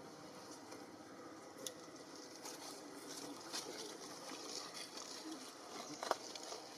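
Faint outdoor background: a steady low hiss with a few small clicks and rustles, a short click about a second and a half in and a sharper one about six seconds in.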